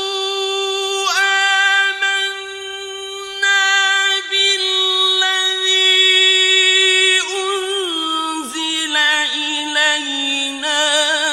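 A male reciter's voice in mujawwad (melodic) Quran recitation holds one long high note for about seven seconds, then descends in wavering melismatic ornaments.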